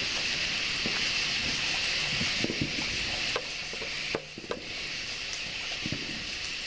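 A steady high hiss with a few faint clicks scattered through it. It dips briefly about four seconds in.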